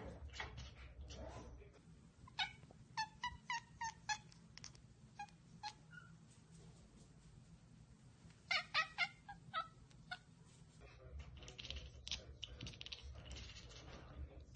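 Cat chattering: runs of short, quick, high chirps, the 'ekekeke' a cat makes when it spots a bird or insect it cannot get to, with two louder runs a few seconds apart.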